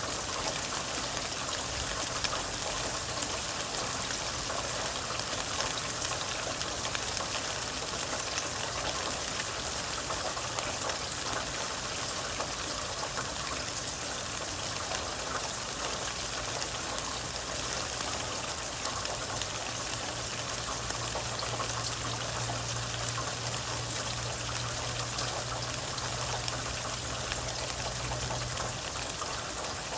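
Steady rainfall with many close drips and a few louder drops. A faint low hum sits underneath, growing stronger about two-thirds of the way through and stopping just before the end.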